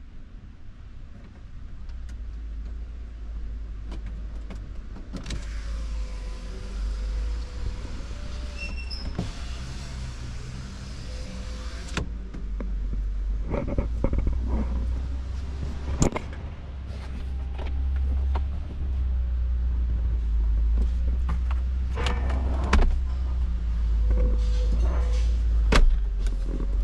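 An electric window motor runs for about seven seconds, starting some five seconds in, over a steady low rumble. After it stops come a series of sharp clicks and knocks as the pickup's center console is handled.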